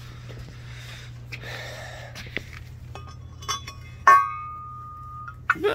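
Black metal wing-mount bracket handled on concrete: a few light clinks, then about four seconds in a sharp clank that rings on at one pitch for about a second.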